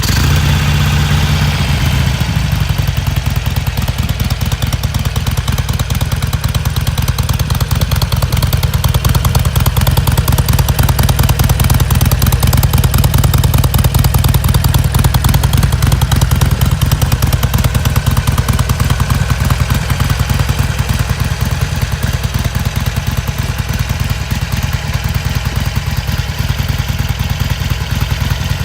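Harley-Davidson Sportster Iron 883's air-cooled 883 cc V-twin idling steadily on its stock exhaust, a loud, even, low beat.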